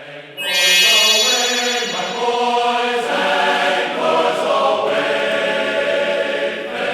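Background music with sustained, choir-like chords, coming in sharply about half a second in.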